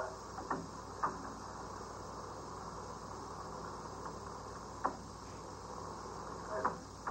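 Steady hiss and low hum of an old optical film soundtrack, with a few short scattered clicks.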